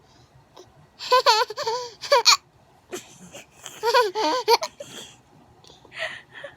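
A baby laughing: two bursts of high-pitched, bubbly giggles, one about a second in and another around four seconds in.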